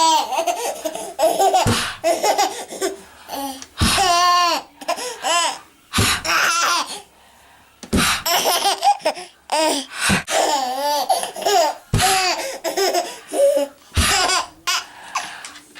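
Baby laughing in repeated bouts about every two seconds. Each bout starts with a short, sharp knock.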